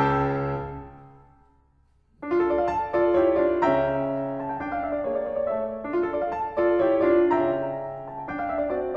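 Background piano music: a chord rings out and dies away over the first two seconds, a brief hush, then a new phrase of single notes and chords starts a little after two seconds in.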